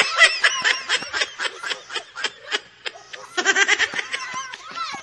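Children laughing and giggling in rapid high-pitched bursts, easing briefly around the middle and picking up again.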